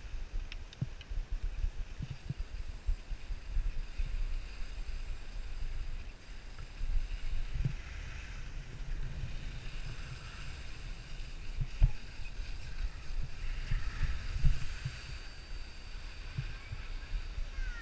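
Wind buffeting a body-worn camera's microphone in uneven gusts while skiing, over the hiss of skis sliding on snow.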